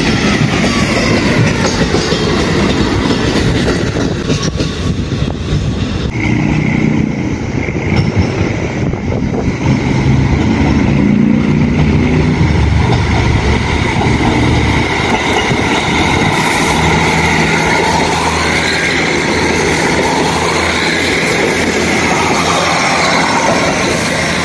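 KiHa 40 diesel railcars moving slowly during shunting: the diesel engines run with a steady drone while the wheels clack over the rail joints, with some high wheel squeal at times.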